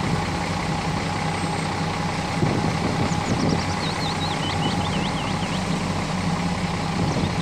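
Hyundai wheel loader's diesel engine running steadily as the machine works its loader arm, with a steady high whine over it. A short run of high chirps comes about three to four seconds in.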